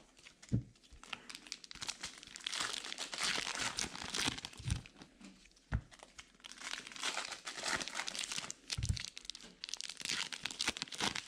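Trading card pack wrappers crinkling and tearing as packs are handled and opened, with a few dull knocks on the table.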